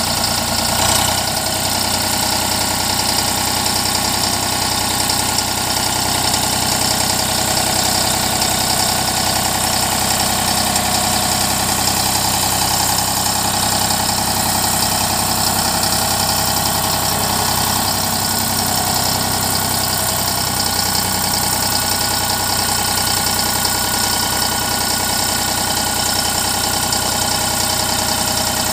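Eicher 548 tractor's three-cylinder diesel engine running steadily while driving the front loader's hydraulics off the tractor's own pump as the bucket is raised and lowered.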